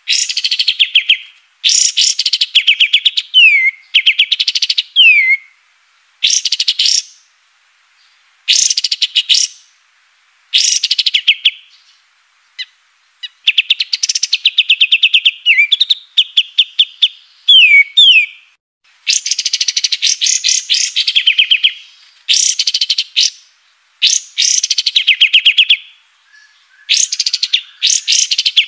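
A kapas tembak songbird singing a string of phrases, each a fast run of high, clipped notes lasting a second or two and often ending in a quick falling slur, with short pauses between phrases.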